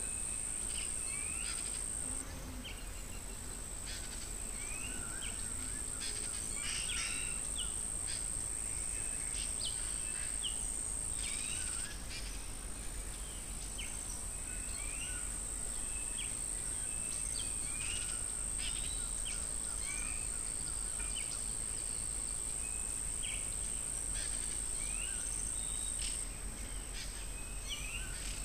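Wild insects keep up a steady, high, one-pitch drone, while birds give frequent short chirps and calls throughout. A faint low rumble runs underneath.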